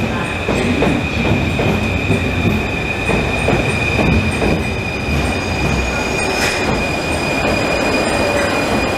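Rubber-tyred Paris Métro train running into the station and slowing, with a steady high-pitched whine throughout and higher whines joining about halfway through.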